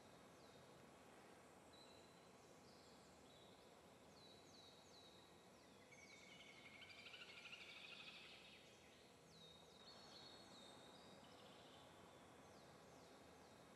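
Near silence: faint background hiss, with faint, short, high chirps that fall in pitch repeating throughout and a slightly louder stretch of high hiss midway.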